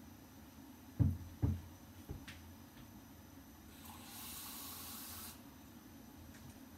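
Two dull knocks about a second in, then a tap running briefly, a steady hiss of water that starts and stops sharply after about a second and a half.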